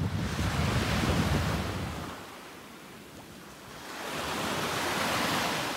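Waves washing onto the shore, a hiss that swells, fades about two seconds in and swells again as the next wave comes in. Wind rumbles on the microphone for the first two seconds.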